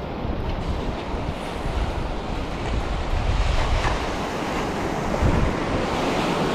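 Waves washing on the shore, with wind buffeting the microphone.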